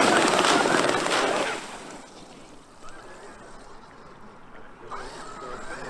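Traxxas X-Maxx RC monster truck running hard, its electric motor and tyres making a loud rushing noise for about a second and a half. The noise then falls away to a low background.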